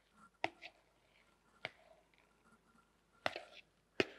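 Spoon knocking and scraping against the rim of a mixing bowl as whipped cream is scraped out into another bowl: four short, sharp clicks a second or so apart.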